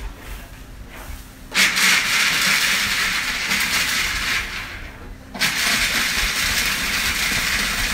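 Food processor chopping toasted whole almonds in two pulses. The motor starts about a second and a half in and runs for about four seconds, stops briefly just after five seconds, then starts again and keeps running.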